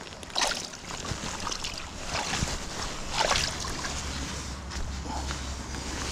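River water sloshing and splashing, with three louder splashes in the first few seconds. A low wind rumble on the microphone comes in over the second half.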